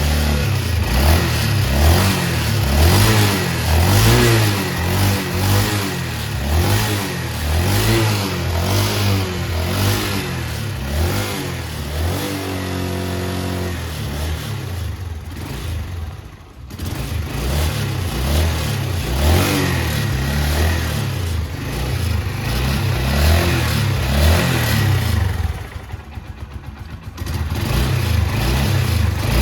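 The single-cylinder four-stroke engine of a 2006 Suzuki GZ 250 running on its freshly rebuilt carburetor, revved up and down repeatedly with the throttle. It holds a steady idle briefly about twelve seconds in, and near the end drops to a low, uneven idle before being revved again. It is running as it is supposed to.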